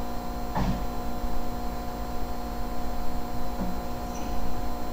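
Steady electrical mains hum, with a faint short sound about half a second in.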